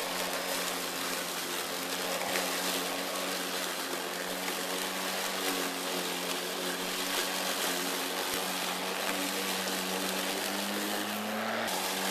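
RYOBI 40V brushless cordless lawn mower running under load, cutting tall, thick grass: a steady motor and blade hum over a broad hiss. The pitch rises a little and then shifts near the end.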